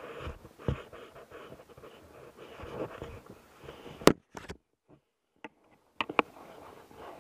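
Handling noise and gear rustling as a hiker climbs over fallen logs with a pole-mounted camera, broken by sharp knocks and clicks, the loudest about four seconds in. The sound then drops out for over a second before two more clicks.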